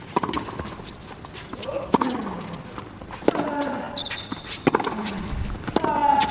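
Tennis rally on a hard court: the ball is struck back and forth about once a second, with players grunting on their shots and shoes squeaking briefly on the court.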